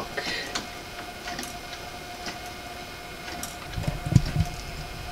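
Ticking of a 3D-printed replica Huygens pendulum clock: the plastic escape wheel teeth click against the front and back anchor pallets about every half second. The maker takes this as the sign of a well-set escapement with an even beat. A low rumble comes in near the end.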